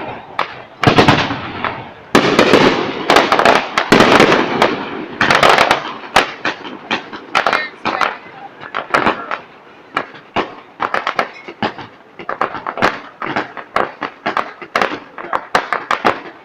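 Fireworks display: loud bangs and crackling shell bursts, densest over the first six seconds, then a rapid series of sharp separate cracks.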